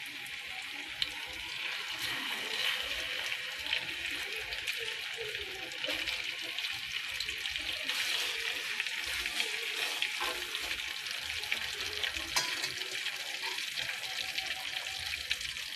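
Marinated pork pieces deep-frying in hot oil: a steady sizzle with occasional sharp pops and crackles.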